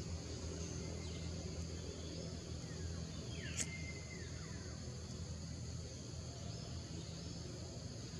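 Forest ambience: a steady high drone of insects over a low steady hum, with one short, sharp bird call about three and a half seconds in.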